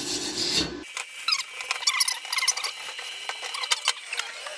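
A hand wire brush scrubbing a cracked cast iron exhaust manifold, cleaning the metal for welding, for the first second or so. After a sudden change, scattered clicks, clinks and short scrapes follow as tools are handled.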